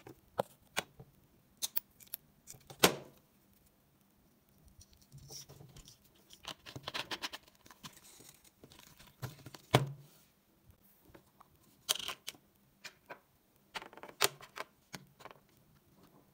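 Plastic bottle and small objects being handled on a tabletop: scattered clicks and taps, with a stretch of rustling in the middle as twine is drawn through the bottle's cap.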